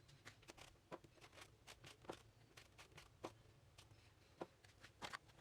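Faint, irregular taps of a kitchen knife on a chopping board as vegetables are cut, about one or two a second.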